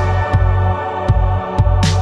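Background electronic music: a held synth chord over a steady kick-drum beat, with a rising noise swell near the end.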